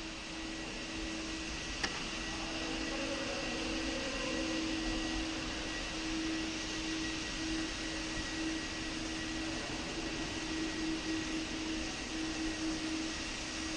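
Steady mechanical hum over an even hiss, with one faint click about two seconds in.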